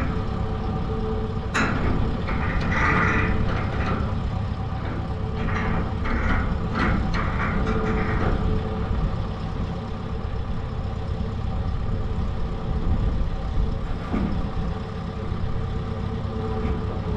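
SkyTrak telehandler's diesel engine idling steadily, with a few knocks and clanks in the first half.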